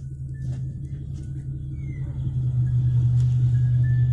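Jeep Grand Cherokee WJ's 4.7-litre High Output V8 running at a steady pitch under load while pulling a tree trunk out of the ground, getting louder about two and a half seconds in.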